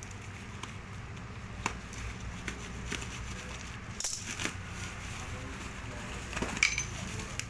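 A parcel being handled and opened: scattered rustles, taps and clicks, the sharpest about four seconds in and again near the end, over a steady low hum.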